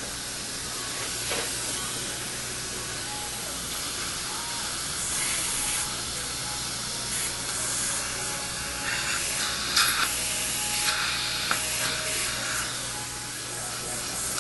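A steady hiss over a low hum, with louder bursts of hissing about five, nine and eleven seconds in.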